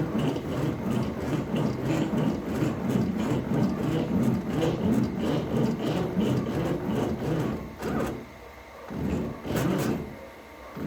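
CNC router running on a wooden board, a steady rough rumble that drops away briefly twice near the end.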